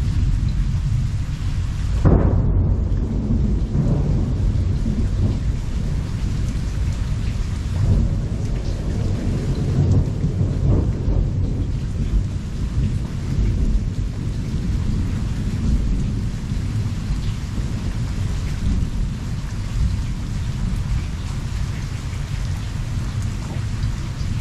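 Thunderstorm: steady rain with nearly constant rolling thunder. A sudden louder peal comes about two seconds in, then the rumbling rises and falls several times.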